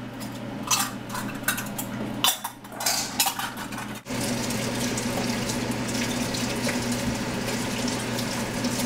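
Metal spoon clinking and scraping against a tomato paste can and a large stainless stockpot while stirring thick spaghetti sauce. About four seconds in, a steady rushing noise with a low hum starts and runs under the stirring.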